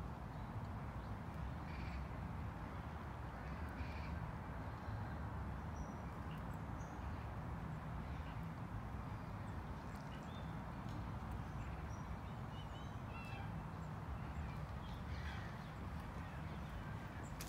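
Outdoor park ambience: a steady low rumble, with short bird calls scattered through it.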